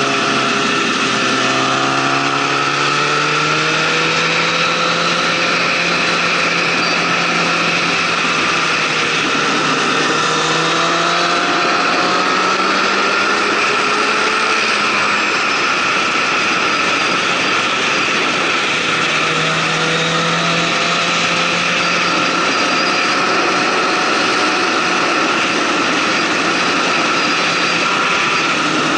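Motorcycle engine running at road speed, its pitch climbing and falling as the rider accelerates and eases off, over a steady rushing noise of wind and road.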